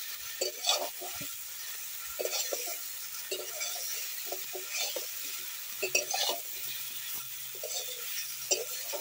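Metal spatula scraping and stirring vegetables in a metal karai (wok), in irregular strokes about once a second, over a faint sizzle of frying.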